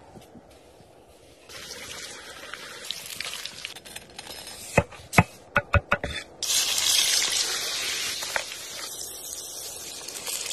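A cleaver chopping raw potato into sticks on a wooden board, about seven quick chops, followed by a loud steady sizzle of food frying in a hot pan.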